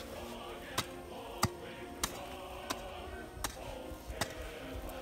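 Background music over six sharp, slightly uneven strikes about two-thirds of a second apart: an East German folding entrenching tool, its blade locked at right angles like a hoe, hacking into dirt.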